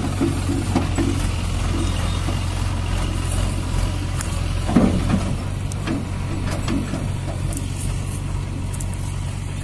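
Mahindra 575 DI tractor's four-cylinder diesel engine idling steadily, with a brief louder burst about five seconds in.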